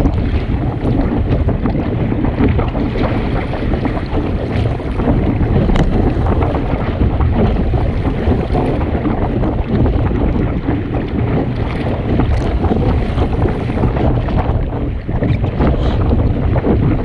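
Steady wind noise buffeting the microphone aboard a Sunfish sailboat under sail, with a few short sharp knocks.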